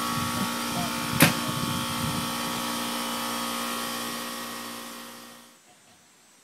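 Steady mechanical hum of a motor-driven machine running, with one sharp click a little over a second in; the hum fades away about five seconds in.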